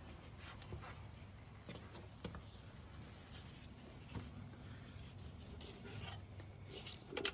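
Faint, scattered clicks and light scrapes of metal parts and tools being handled while working an injector loose, over a low steady hum.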